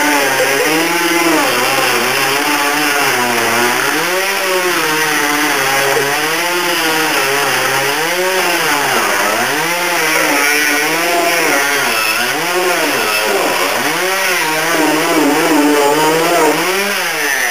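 Chainsaw engine running loud and revving up and down about once a second, dipping under load as it cuts through a couch.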